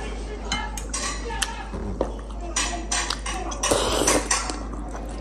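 A fork and spoon clinking and scraping against a bowl as noodles are stirred and lifted, with a louder slurp of noodles about four seconds in.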